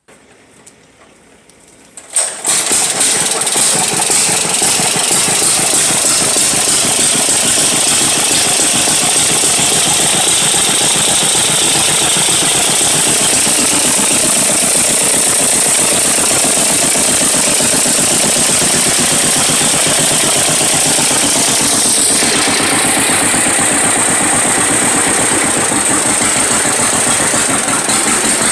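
Vintage two-cylinder John Deere tractor engine starting about two seconds in and then running steadily, its note shifting late on.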